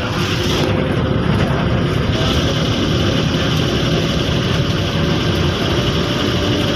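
KSRTC bus engine running steadily, a dense low sound with a faint steady hum above it.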